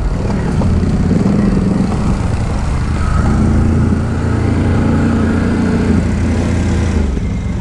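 ATV engines running steadily at low speed, with no revving.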